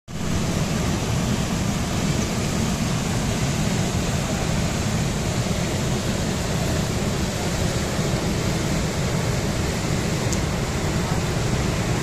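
Waterfall and the churning water of its plunge pool: a steady, loud rushing noise with a deep rumble underneath.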